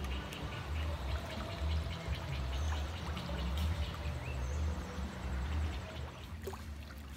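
River water flowing past rocks: a steady rushing wash over a fluttering low rumble.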